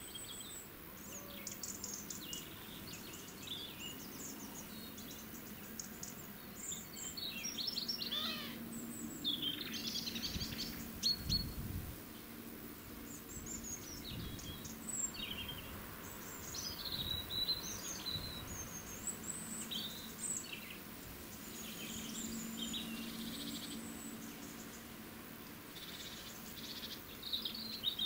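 Small birds chirping and singing: many short high calls and quick rising and falling notes, scattered and overlapping, over a faint low steady hum.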